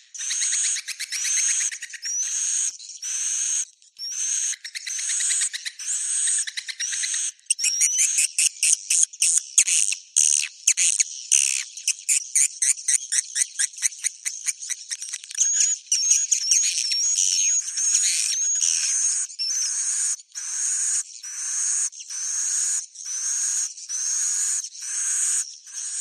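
Swiftlet 'suara inap' (roosting call) lure recording: edible-nest swiftlet twittering and chirring, played to make swiftlets settle and stay in a swiftlet house. It comes in repeated phrases about a second long, each with a rising whistle at the top. From about a third of the way in, a faster run of rapid chattering pulses and a wavering trill takes over, then the one-a-second phrases return.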